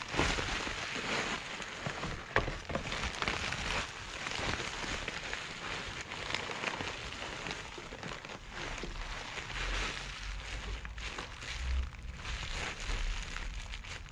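Bubble wrap crinkling and rustling as gloved hands handle and unwrap it, a continuous crackle of small clicks.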